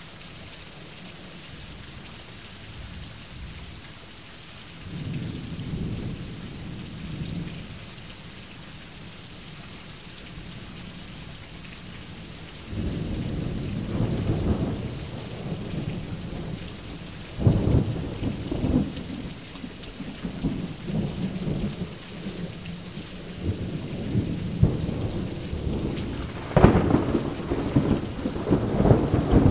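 Thunderstorm: steady rain hissing, with a low roll of thunder about five seconds in. From about halfway there is continuous thunder rumbling with sharp claps, the loudest near the end.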